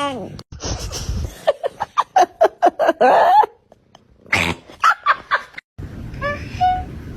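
Cats vocalizing in a string of short spliced clips: a falling meow, then a quick run of short pitched calls about three a second, and more short chirping calls near the end over a low hum.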